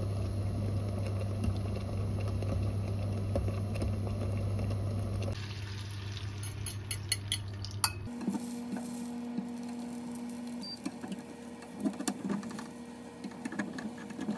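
Stovetop cooking: a pot of soup simmering with a steady hum, then beaten eggs cooking in a frying pan while a spatula stirs and scrapes, with sharp clicks of the utensil against the pan.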